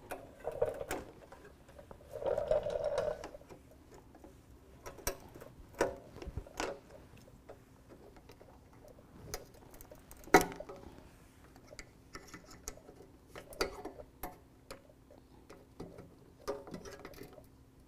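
Plastic push pins being pried out of a plastic bumper trim piece with a panel popper tool: irregular clicks and snaps, the loudest about ten seconds in, with brief rustling of the plastic being handled near the start.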